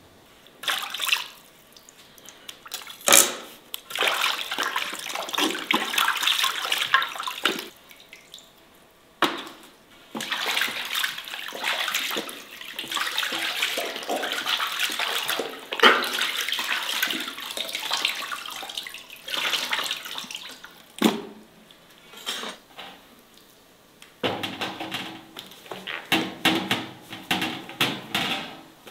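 Water sloshing and splashing in a metal basin as whole raw chickens are washed by hand and lifted out dripping, in irregular bursts with short pauses.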